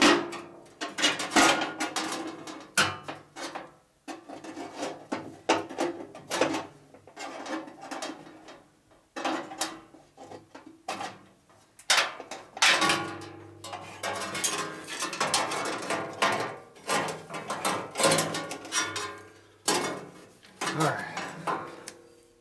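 Steel bandsaw blade clanking and rattling against the metal wheels, frame and table of a 1960s Boice-Crane 14-inch bandsaw as it is worked back out of the machine by hand. It comes as irregular metallic clatter with a slight ringing, in spells separated by short pauses.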